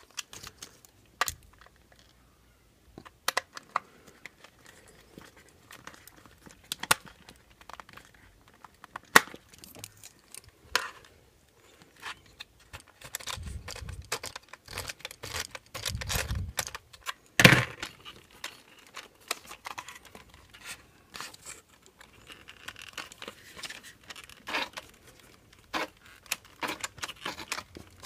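Scattered clicks, taps and rustling as a screw is tightened with a precision screwdriver and hands handle the RC truck's chassis and parts, with one louder knock about two-thirds of the way through.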